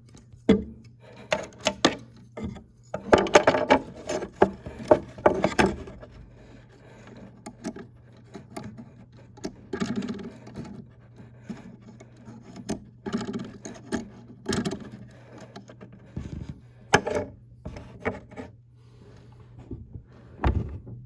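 Handling noises from a wooden wall clock case and its metal pendulum: irregular knocks, scrapes and light jangling as the pendulum is worked onto its hanging hook, over a faint steady hum.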